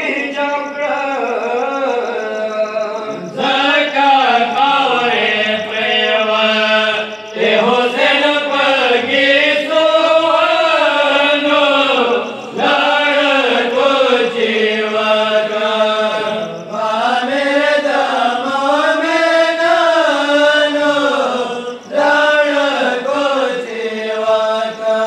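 A Pashto noha, a Shia mourning lament for the martyrdom of Imam Ali, chanted in long melodic vocal phrases with brief breaks between them.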